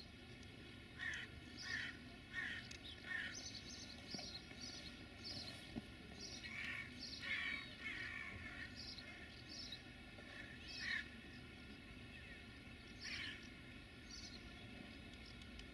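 A crow cawing in series: four calls in quick succession about a second in, a cluster of calls midway, and single caws later. Small birds chirp faintly and high above it over a quiet outdoor background.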